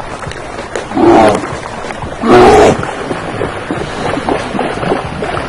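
Brown bear roaring twice: two short, loud calls about a second and a half apart, over a steady rush of water.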